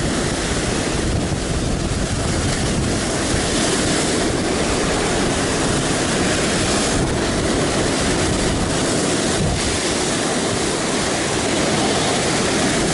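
Heavy surf breaking on rocks: a steady, loud rush of churning whitewater from a rough sea swell.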